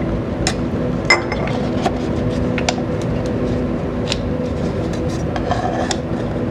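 Light clicks and clinks of a glass graduated cylinder and a plastic lid as the cylinder is emptied into a styrofoam-cup calorimeter and the cup is capped again, the sharpest clink with a brief ring about a second in. A steady low hum runs underneath.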